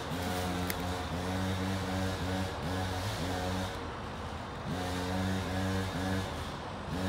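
Stihl MS 362 C chainsaw, a 59 cc two-stroke, heard at a distance revving in repeated short bursts, the pitch rising at the start of each and falling away between them, with a short lull about four seconds in.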